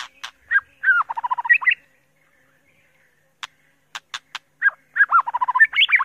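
White-rumped shama singing two matching phrases. Each opens with sharp clicks and a couple of slurred whistles, then runs into a quick string of short low notes and ends in a rising flourish.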